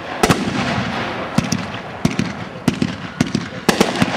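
Fireworks going off: a steady rushing hiss broken by about a dozen sharp cracks at irregular intervals.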